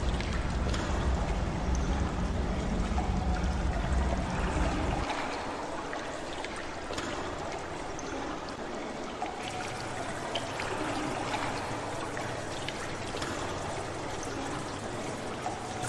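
Running, trickling water with scattered small drips, steady throughout. A low rumble underneath cuts off suddenly about five seconds in.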